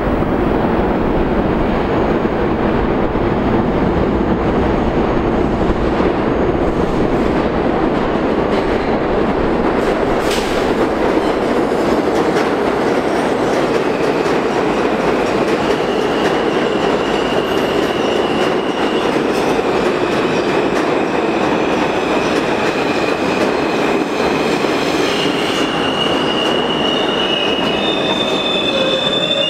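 New York City Subway L train pulling into an underground station: a loud, steady rumble of steel wheels on rails as the cars roll along the platform. High-pitched squeals come in about halfway through and grow stronger near the end as the train brakes to a stop.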